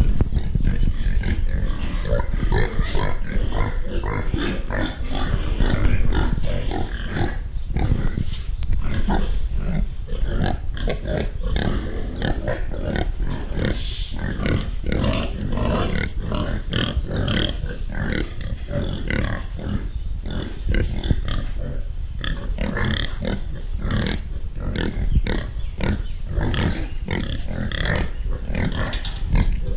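Farm pigs calling, many short overlapping calls one after another, over a steady low rumble.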